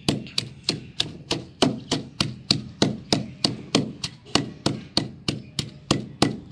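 Wooden pestle pounding fresh mint leaves and crushed dried pomegranate seeds in a stone mortar, grinding them for chutney. It makes a steady rhythm of knocks, about three strikes a second.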